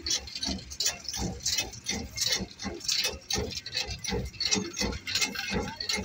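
Hand tools working loose gravel chippings on a road: brooms and rakes scrape and clink over the stones in short, irregular strokes, about two or three a second.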